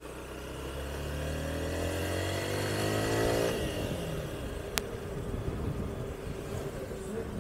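Honda Bros 160 motorcycle's single-cylinder engine pulling under throttle, its pitch rising for about three and a half seconds, then dropping off and running on steadily. A single sharp click about five seconds in.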